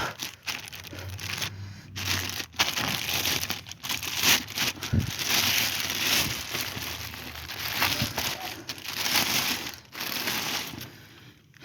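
Plastic packaging crinkling and rustling as it is handled and pulled off a subwoofer, in irregular spells broken by brief pauses.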